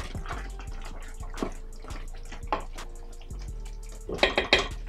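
Wooden spoon stirring a simmering meat sauce in a stainless steel pot, wet sloshing with scattered knocks and scrapes of the spoon against the pot, loudest in a quick cluster near the end.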